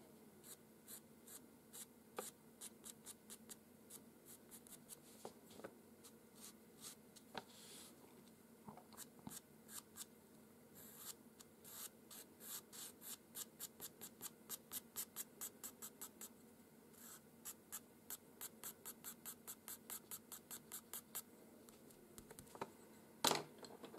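Pastel pencil scratching short, quick fur strokes on paper, faint. The strokes come in fast runs of about three or four a second.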